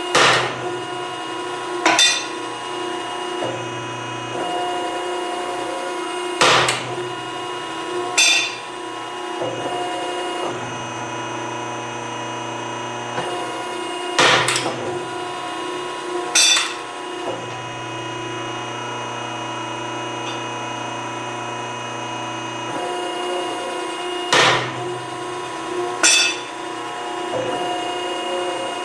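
Edwards hydraulic ironworker punching holes through a steel plate: eight sharp bangs in pairs about two seconds apart, over the steady hum of the machine's running pump motor.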